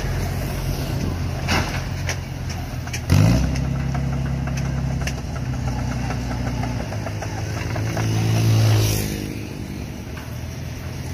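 Engine of a cable-operated crawler crane with a clamshell grab running steadily, revving up with a sharp clank about three seconds in, and swelling louder again near the end before easing off.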